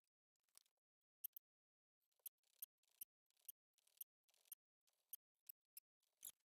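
Very faint clicks and short scratchy rasps, about two a second from about two seconds in, from a wrench being worked on a Toyota Tacoma clutch slave cylinder's bleed screw while the clutch is bled manually.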